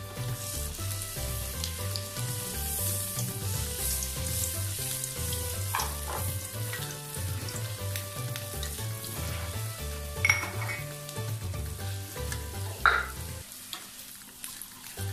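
Hot oil sizzling steadily as an ote-ote batter fritter deep-fries on a ladle mould in a wok, with a spoon basting oil over its top so it puffs up. A metal spoon clinks sharply twice against the metal, the loudest sounds. Background music with a steady beat plays underneath and stops near the end.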